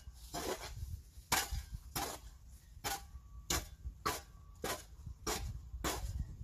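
A series of sharp knocks, about one every half second, over a faint low rumble.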